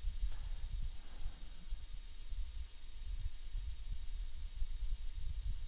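Low, uneven rumble of background room noise with a faint hiss and a few faint, irregular clicks.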